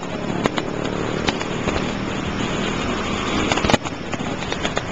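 Steady hum of idling cars and traffic, with a few sharp cracks of distant fireworks bursting: one about half a second in, one just over a second in, and the loudest pair near four seconds in.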